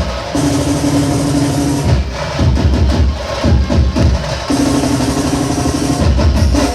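Loud music with a heavy bass-drum beat, played through a large DJ sound system.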